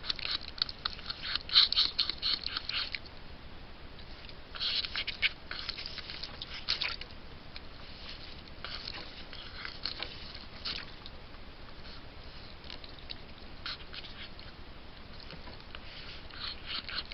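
Fisher chewing and tearing at a beaver carcass: spells of quick crunching clicks a couple of seconds long with short pauses between them.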